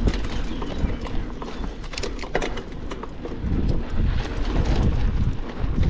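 Mountain bike clattering over rough trail, with irregular knocks and rattles over a constant low rumble.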